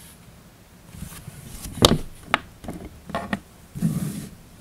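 A few sharp clicks and knocks from a spinning reel and its parts being handled and set down on a desk, the loudest a little before the middle, followed by a softer thump and rustle near the end.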